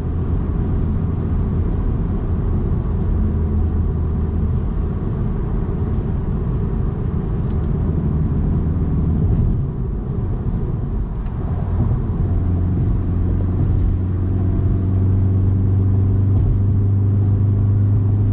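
Steady low rumble of wind and road noise from a Volkswagen Mk7 Golf at highway speed, with air rushing over the roof rack crossbars and making a heavy, drag-like wind noise. About twelve seconds in, a steady low hum grows stronger.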